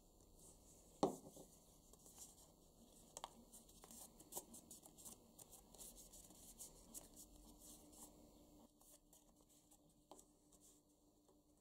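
Faint rustling and crinkling of stiff paper as fingers fold and press paper flower petals together, with one sharp click about a second in.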